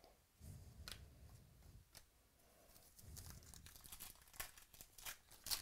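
Faint crinkling and tearing of a trading-card pack wrapper being pulled open by hand, with soft rustles from the cards being handled and a few sharp crackles near the end.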